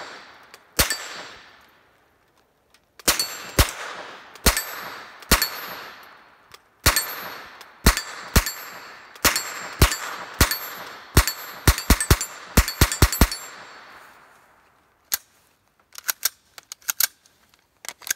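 AR-15 pistol with a CMMG .22 LR conversion kit firing .22 LR rounds semi-automatically: about twenty sharp cracks in uneven strings, coming faster about eleven to thirteen seconds in, each trailing off in echo. One more shot a couple of seconds later, then a few lighter clicks near the end.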